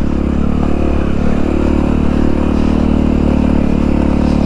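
A 1997 Honda XR650L's air-cooled 644 cc single-cylinder engine running with a steady note while the dirt bike pulls up a steep dirt-trail hill climb.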